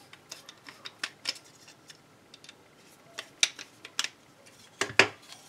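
Hand screwdriver driving a small 10-24 machine screw into a plastic finderscope base and 3D-printed mount, with irregular small clicks and ticks of metal on plastic, and a couple of louder knocks near the end.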